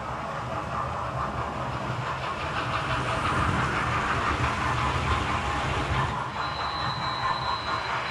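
A model railway train runs past close to the track. Its wheels rumble and click over the rail joints, growing louder as the coaches go by about three to six seconds in, and a thin high steady whine comes in after about six seconds.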